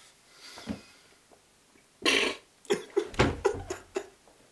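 A person retching and gagging, a run of short heaves starting about two seconds in, after a sip of a foul tea-and-oil drink: nearly vomiting, but nothing comes up.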